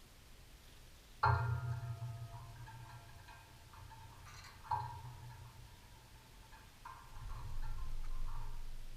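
Three sudden knocks, about a second in, near the middle and near the end. Each sets off a ringing metallic tone that fades over a couple of seconds, the first being the loudest.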